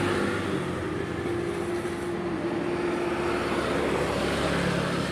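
Steady background engine rumble with a held hum that stops about three and a half seconds in.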